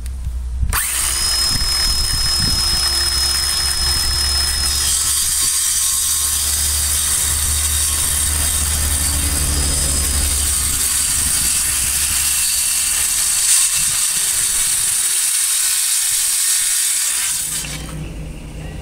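An electric power tool runs under load in a wooden board for about 17 seconds, starting about a second in and cutting off sharply near the end. A thin high whine sits on top of the noise for the first few seconds.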